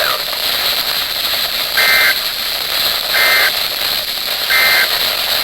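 Emergency Alert System end-of-message signal: three short, identical warbling data bursts about a second and a half apart, heard over steady radio hiss as the tornado warning broadcast ends.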